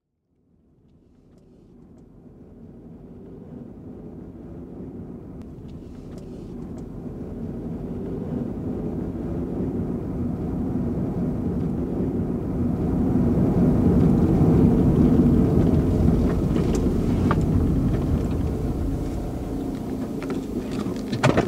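A car approaching along the road, its engine and tyre noise fading in from silence and growing steadily louder, then easing off as it slows and pulls up.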